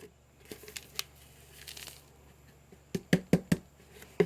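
Dry Helenium (sneezeweed) seed heads being handled in a container: a faint crinkly rustle, then a quick cluster of sharp knocks about three seconds in and one more near the end.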